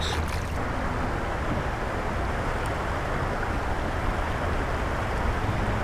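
A steady rush of river water and wind on the microphone, even throughout, with a low rumble.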